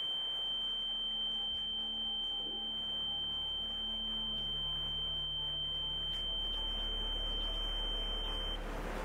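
A steady, high-pitched electronic sine tone, held at one pitch and cutting off suddenly near the end, over faint low sustained tones and a hum.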